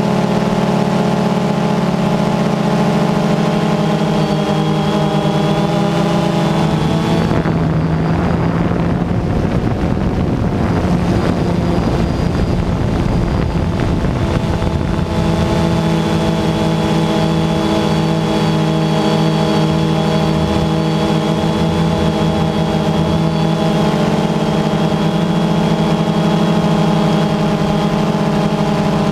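DJI Phantom II quadcopter's motors and propellers buzzing loudly, heard from the camera on the drone itself. The pitch is steady, then wavers and blurs for several seconds near the middle before settling back to a steady hum.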